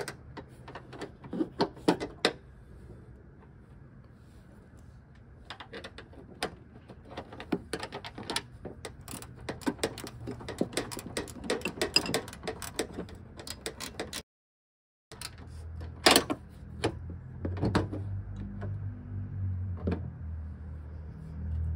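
Scattered metallic clicks and clinks of a new hood hinge and its bolts being handled and fitted by hand on a Ford Mustang's hinge mount. The sound cuts out briefly about two-thirds of the way through, and a low rumble comes in near the end.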